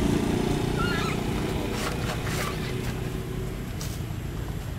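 A low engine drone that slowly fades away, with a few faint high squeaks and light clicks over it.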